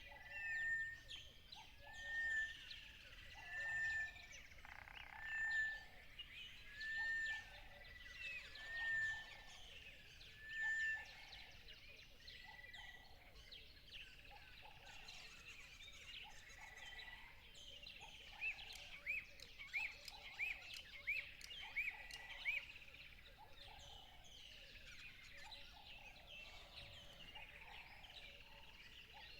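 Several songbirds singing together. One bird repeats a short whistled note about once a second for the first ten seconds, and a run of quick chirps comes at about two a second around two-thirds of the way through.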